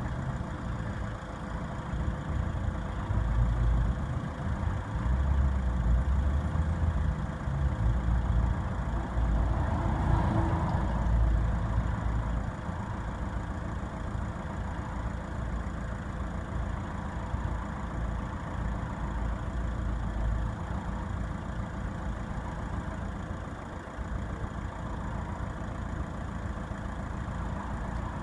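Vehicle engine idling, with a steady low rumble that swells unevenly over the first dozen seconds and then settles, and a faint steady high-pitched whine above it.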